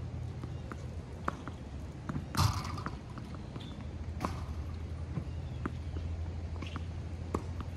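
Tennis ball practice off a ball machine: sharp pops of tennis balls struck and bouncing, one every second or two, the loudest about two and a half seconds in, over a steady low hum.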